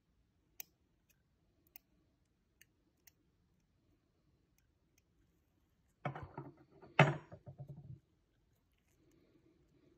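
Faint metal clicks as steel tweezers tap a tiny metal miniature pistol, a few ticks spaced about a second apart. About six seconds in comes a couple of seconds of rubbing and scraping handling noise from gloved fingers on the little gun, with one louder knock in the middle.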